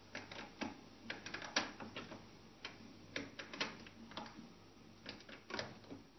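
HP PSC 2353 all-in-one inkjet printer ticking and clicking faintly and irregularly in its head-cleaning cycle.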